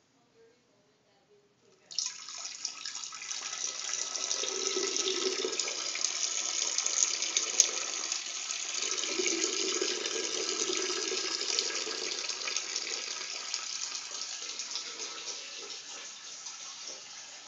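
Water rushing steadily in a bathroom. It starts suddenly about two seconds in and slowly fades near the end.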